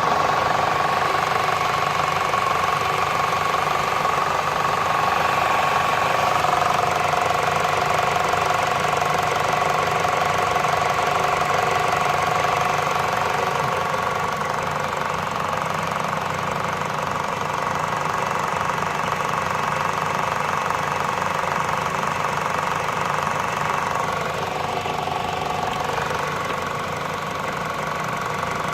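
Citroën C5 1.6 VTi four-cylinder petrol engine running at a steady idle with a rapid, even ticking.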